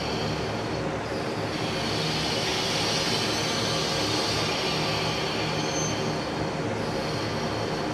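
JR Central diesel railcar train, a KiHa 11 at its head, drawing slowly to a stop at the platform with its diesel engines running. A high brake squeal from the wheels rises about a second and a half in and fades away near the end.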